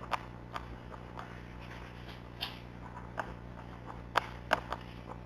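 Handling noise from items and packaging being moved about: scattered light clicks and taps, with a few sharper ones about four seconds in, over a low steady hum.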